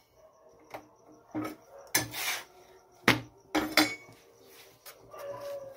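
Kitchen utensils knocking and clinking against a metal roti griddle (tawa): a series of sharp separate knocks a fraction of a second to a second apart, the loudest about three seconds in.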